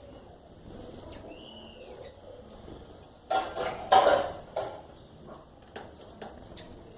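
Birds chirping with short high notes and a brief curved whistle. Two loud, harsh, noisy bursts come a little after three seconds and at four seconds.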